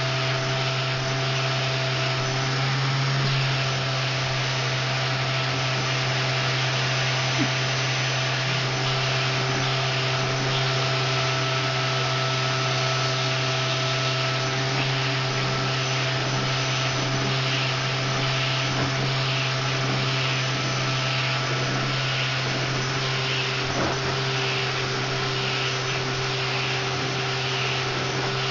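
Vacuum cleaner running steadily, its hose nozzle being stroked through a cat's long fur. The upper hiss pulses faintly about once a second in the second half.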